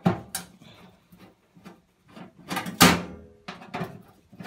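Screwdriver clicking, scraping and knocking against a washing machine's sheet-metal cabinet and fittings, with one loud clank a little under three seconds in that rings briefly.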